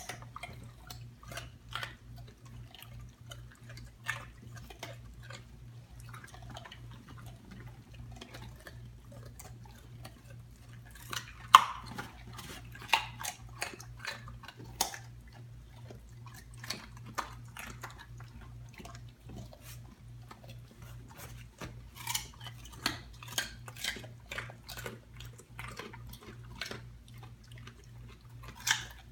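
Dogs chewing raw carrots: irregular crisp crunches and cracks as the carrots break between their teeth, the loudest crack about a third of the way in.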